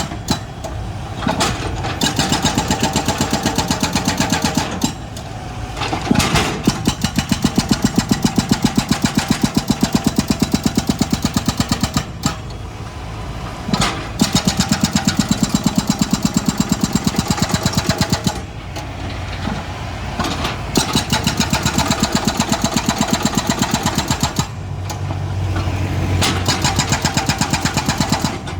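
Excavator's diesel engine running and working, its pulsing beat loud and steady, easing off briefly several times and picking up again.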